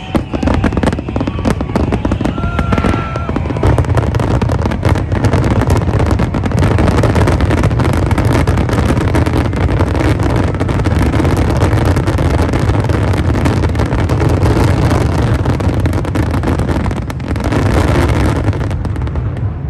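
Fireworks going off in a rapid, unbroken barrage: many shell bursts and crackles overlapping into a continuous deep rumble, typical of a display's finale. The barrage eases off near the end.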